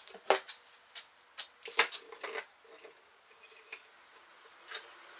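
Light knocks and clicks as a cross peen hammer is picked up off a workbench and set into a bench vise: about five sharp knocks in the first two and a half seconds, then two small metal clicks as the vise is worked.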